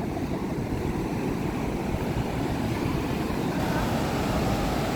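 Steady, even rush of ocean surf breaking on the beach, its noise mostly low in pitch.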